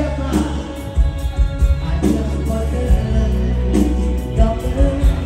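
Live Thai Isan band playing with a man singing held notes over bass and a regular drum beat.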